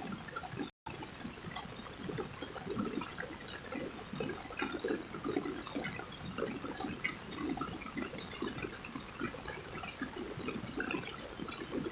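Heavy rain falling, thick with small splashes, over lower gurgling of running water. The sound cuts out for an instant just under a second in.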